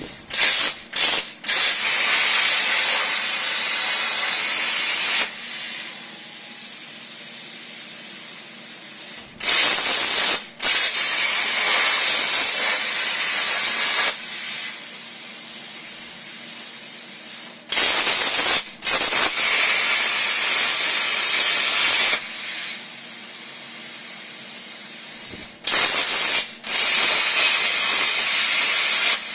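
Everlast 62i plasma cutter on a CNC table cutting metal plate: four loud, steady hissing cuts of about four to five seconds each, each starting with a few brief stutters as the arc strikes. Between cuts there is a quieter steady hiss over a low hum.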